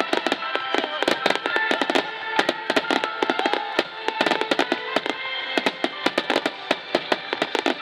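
Starmine fireworks barrage: many rapid, irregular bangs and crackles, several a second, with music playing along.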